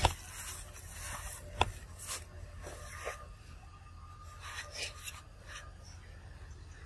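Young macaque gnawing and chewing a piece of corn: rasping, crunching scrapes, with a sharp click at the start and another about one and a half seconds in.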